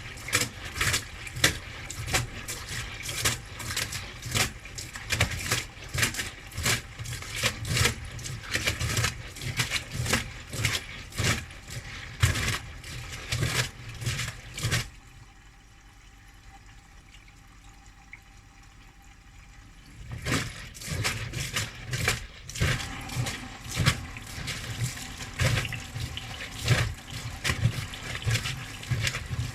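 Front-loading washing machine drum tumbling in the wash, water sloshing and splashing against the drum at irregular beats over a low rumble; about halfway through the drum pauses for some five seconds, then starts turning again.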